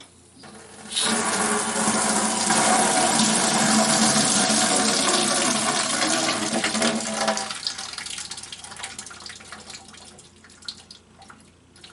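Water rushing out of the opened drain valve of a hydronic heating expansion tank into a bucket, starting about a second in. After about seven seconds it dies down to trickling and drips as the airlock in the sealed tank holds the water back.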